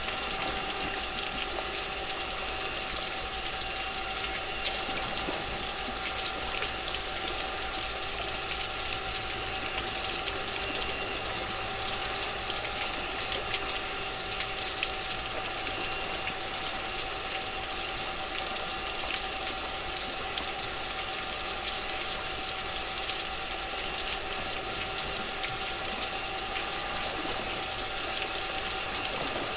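Steady wash of sea water with a constant faint hum underneath.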